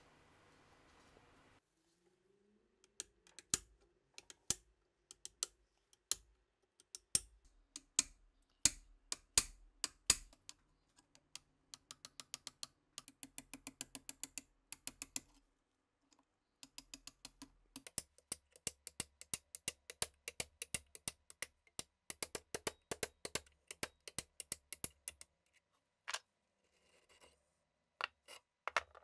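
Sharp metallic clicks of a screwdriver tip working at a rust-encrusted Walther P38 pistol frame. Single loud clicks come about once a second at first, then quicker runs of lighter ticks, several a second, with a few scattered clicks near the end.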